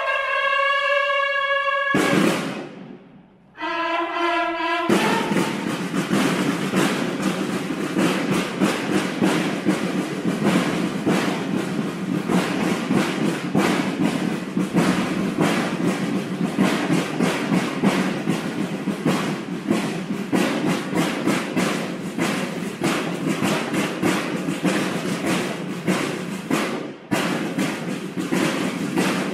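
Banda de guerra: bugles sound a call in the opening seconds, broken by a short pause. About five seconds in, the snare drums take up a fast, steady marching cadence, stopping for a moment near the end before going on.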